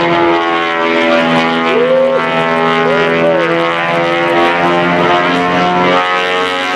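A Twin Beech 18's two Pratt & Whitney R-985 nine-cylinder radial engines running at power in flight, giving a loud, steady, layered drone.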